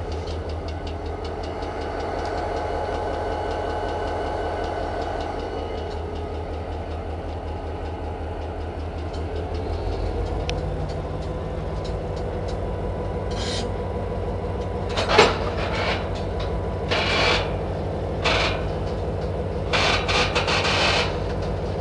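Diesel locomotive engine running steadily, heard from the end platform over the coupler. In the second half, sharp metallic clanks and bangs break in, one much louder than the rest, as the knuckle couplers take up and run in the slack between cars.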